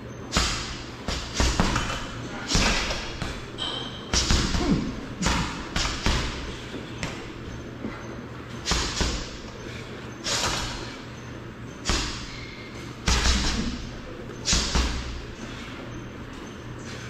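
Gloved punches landing on a heavy punching bag: sharp thuds and slaps in quick, uneven combinations, with short pauses between flurries, stopping about a second before the end.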